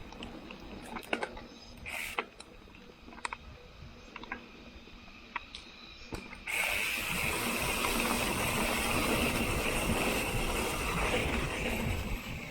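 Industry Nine Hydra rear bike hub freewheeling: scattered clicks and knocks for the first half, then halfway in a loud, steady, high-pitched ratcheting buzz as the bike coasts, running for about six seconds before easing off near the end.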